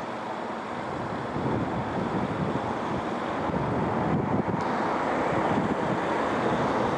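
Street traffic noise mixed with wind buffeting the microphone, a steady rushing that grows gradually louder.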